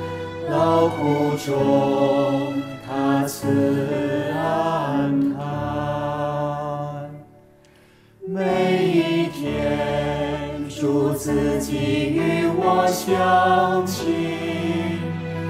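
Voices singing a hymn with musical accompaniment. The music fades almost to silence for about a second just past the middle, then starts again.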